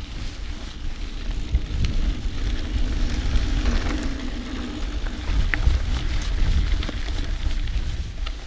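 Mountain bike being ridden along a dirt trail, heard from a GoPro mounted on the bike or rider: tyres rolling over the ground with scattered clicks and knocks from stones and the bike's parts, under a heavy rumble of wind on the microphone.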